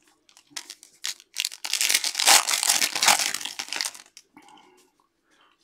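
Foil wrapper of a football trading card pack crinkling and tearing as it is ripped open: a dense crackle lasting about two seconds, after a few light taps of cards.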